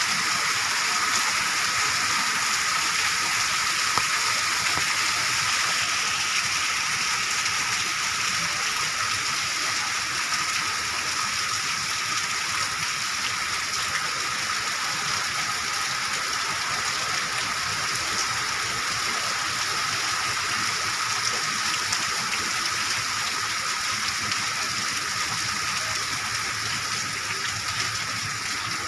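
Heavy rain pouring onto wet pavement, a steady hiss that eases slightly toward the end.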